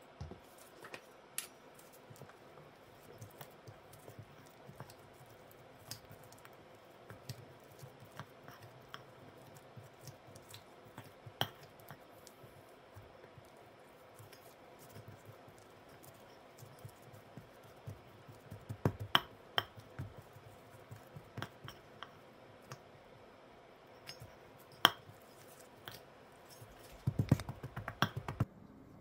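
Wire potato masher pressing cooked potato in a stainless steel bowl: scattered sharp clicks and clinks of metal on metal with soft squashing, and a quick run of knocks near the end.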